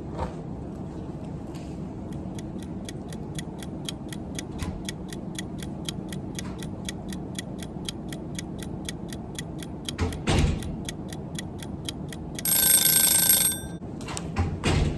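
Clock-ticking sound effect: quick, even ticks about five a second, then a brief alarm-clock ring lasting about a second near the end. A dull thump comes about ten seconds in.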